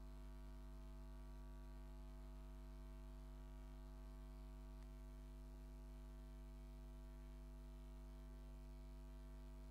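Near silence but for a steady, low electrical mains hum.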